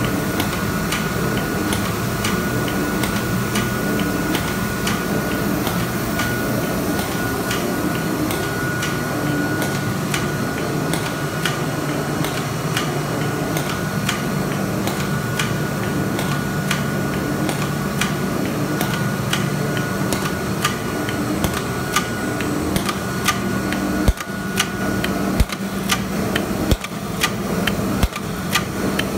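Carton folder-gluer line with tape applicator and hot-melt glue gun running: a steady mechanical hum of belts and rollers under a fast, even train of sharp clicks as the blanks pass through, with a thin steady whine. Near the end the hum drops and single louder clicks stand out.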